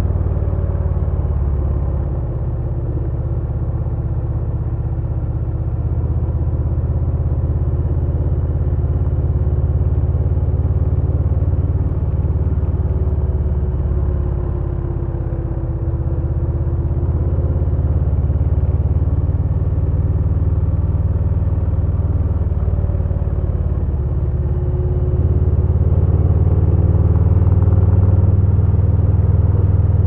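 2022 Harley-Davidson Low Rider S's Milwaukee-Eight 117 V-twin running while the bike is ridden, mostly low and deep in pitch. It eases off briefly about two seconds in and again about halfway, then grows louder from about 25 seconds in.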